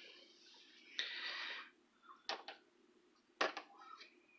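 Faint kitchen handling sounds: a short scrape about a second in, then a light click and a sharper knock, as a spatula works butter in a clear plastic tub.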